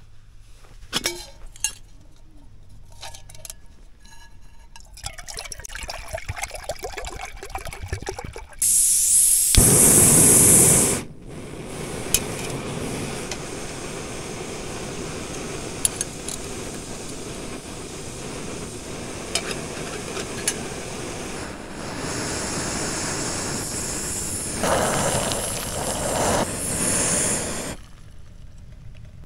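Camp cookware clinking, then water being poured, followed by a loud burst of hiss and a steadier hiss that runs on and stops near the end, typical of a camping gas stove burning under a pot.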